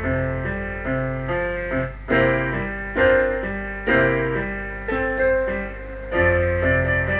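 A portable electronic keyboard played with both hands in a piano-like voice: a melody over held bass notes and chords, with a new chord struck about every second.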